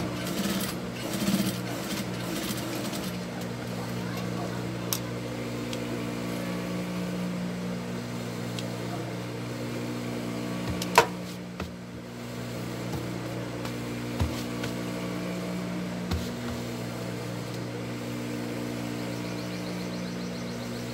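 Industrial sewing machine with its motor giving a steady low hum. One loud sharp click comes about eleven seconds in, and a few lighter clicks fall around it.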